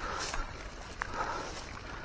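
Footsteps through tall grass, with stems and leaves brushing and rustling against the walker, and a few faint ticks.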